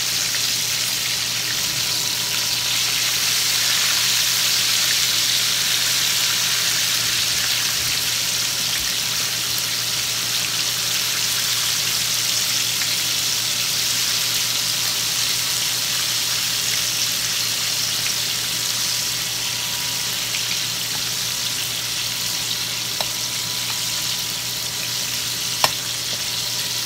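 Chicken pieces frying in lard heated to 350 °F in a cast iron skillet: a steady sizzle, with a couple of light clicks near the end.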